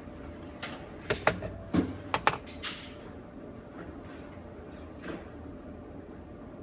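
A quick run of sharp metallic clicks and knocks from handling a Glock 43 pistol between strings of fire, such as a magazine being swapped or the slide being worked. The clicks are packed into the first three seconds, and only a faint steady background follows.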